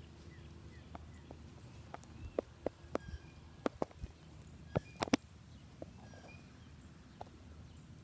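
Scattered sharp clicks and crackles, loudest a quick double snap about five seconds in: bare feet stepping on dry wood-chip mulch.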